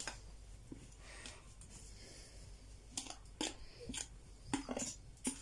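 A fork scraping and clicking against a plate as grated cheese is pushed off it into a bowl: a few light, short scrapes and taps in the second half.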